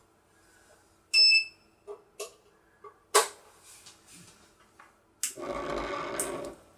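A few sharp handling clicks and a short metallic ping. Then, about five seconds in, the disco light's small mains-powered motor, taken out of its housing, starts and runs with a steady buzzing hum.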